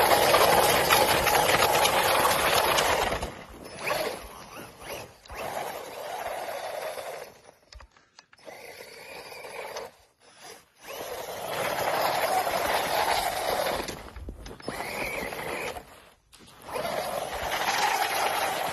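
Bezgar HM124 RC truck's 2847 brushless electric motor running under throttle as the truck drifts, its tyres churning and spraying snow. The sound comes in surges: loud for the first few seconds, fading and briefly dropping out around the middle, then loud again in the second half and near the end.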